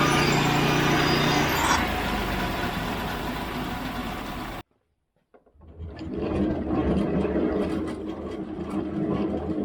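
Portable band sawmill running, its engine humming steadily while the blade cuts through boards; the high cutting noise falls away about two seconds in. About halfway through the sound cuts off abruptly for under a second, then the sawmill engine is heard running again at a lower level.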